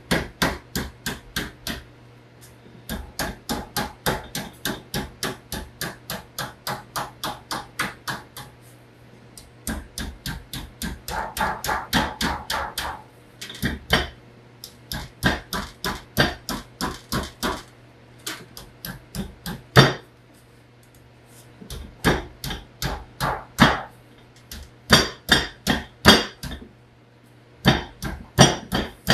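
Hammer tapping the overhanging edge of a thin sheet-metal panel, folding it down over a table edge toward a 90-degree bend. Quick light taps come about four a second in runs broken by short pauses, with one harder blow about twenty seconds in.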